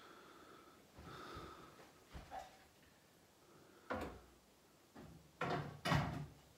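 Aluminium stepladder being shifted and set down: a sharp knock about four seconds in, then a louder clatter of knocks just before the end.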